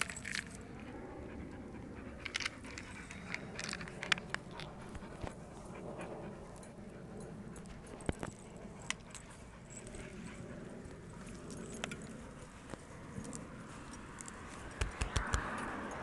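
Dogs panting and moving about on their leashes, with scattered sharp clicks and clinks throughout.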